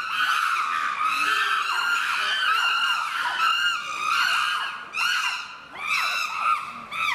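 Several chimpanzees screaming at once, high-pitched overlapping screams in a continuous chorus that dips briefly twice near the end.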